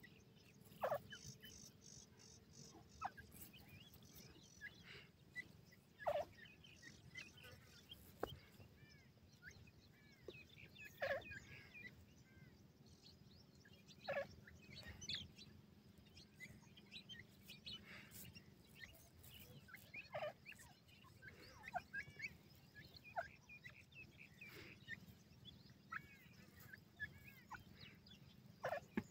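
Young grey francolins giving short, repeated rising-and-falling chirps, with a few louder calls scattered through.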